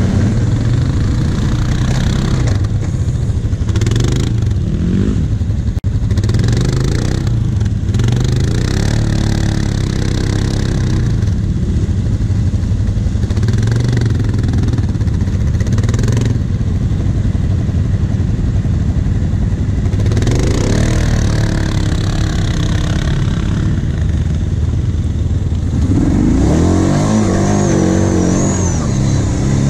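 Quad bike (ATV) engines running, revving now and then, with a stronger rising rev about four seconds before the end.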